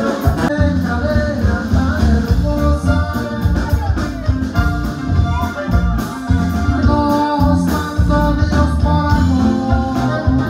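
Live band music with a singer over guitars and a steady beat, with a sousaphone playing the bass line.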